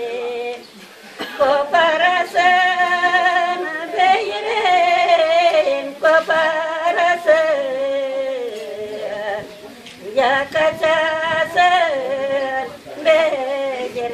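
Elderly Gagauz women singing a folk song unaccompanied, in long wavering phrases with brief pauses between them.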